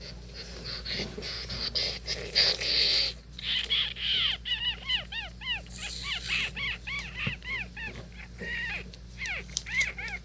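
Rustling for the first few seconds, then about four seconds in an animal starts a quick run of short, high chirping calls, several a second, which keep repeating.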